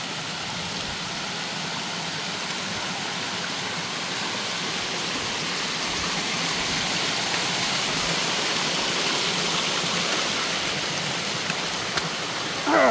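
Shallow creek water spilling down stepped sandstone ledges: a steady rush that grows a little louder toward the middle. Near the end a person's voice sweeps briefly down in pitch.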